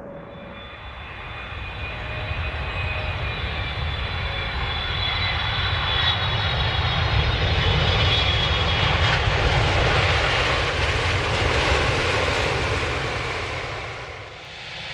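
Jet airliner's engines passing close by: a high whine at first, then engine noise that grows louder and peaks about eight to twelve seconds in, dropping away briefly near the end.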